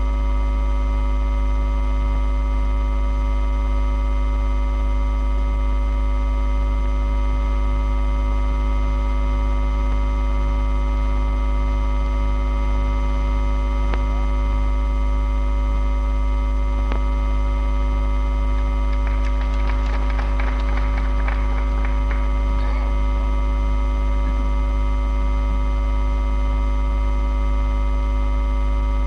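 Loud steady electrical mains hum from the hall's sound system, with its overtones, unchanging throughout. Faint voices show through for a few seconds about two-thirds of the way in.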